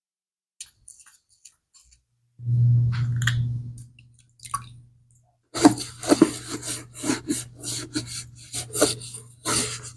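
Leather bag being scrubbed by hand, in quick rasping rubbing strokes about two or three a second, starting a little past halfway. Before that comes a louder noisy stretch of about a second and a half.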